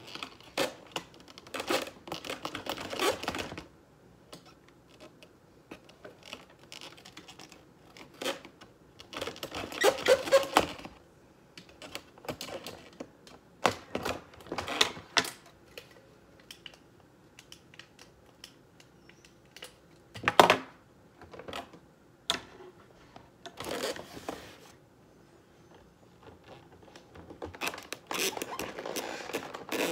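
A cardboard box being handled and worked on by hand: intermittent bursts of rustling, scraping and clicking on the cardboard, with one sharp knock about two-thirds of the way through.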